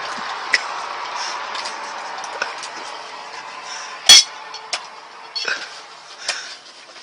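A steady hiss fading away over the first few seconds, then scattered sharp clinks and clicks, like dishes or cutlery knocking, the loudest about four seconds in.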